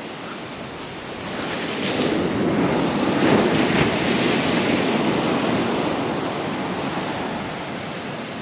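North Sea surf breaking on a sand beach: the rush of a wave swells about two seconds in and eases off near the end.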